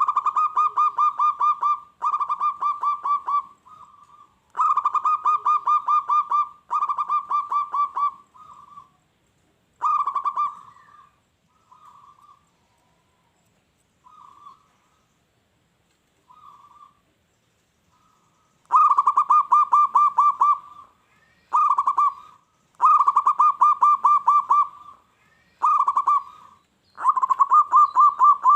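Zebra dove (perkutut) singing: repeated rolling phrases of quick, pulsing coo notes, each phrase lasting one to two seconds. The song goes in two bouts, with a quieter stretch of short, softer notes in the middle.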